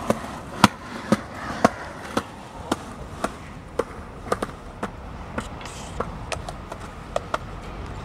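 Skateboard on pavement: a run of sharp clicks and clacks, evenly about two a second at first and then irregular, over a low rumble.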